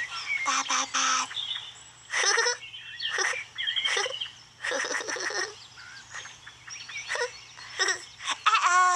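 Birds chirping and tweeting in short, scattered calls over a faint steady hum. Near the end a loud held tone with a stack of overtones comes in.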